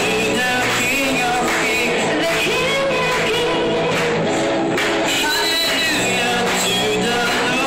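Live worship song: a woman sings into a microphone over a small church band of keyboard and guitar, amplified through the hall's sound system.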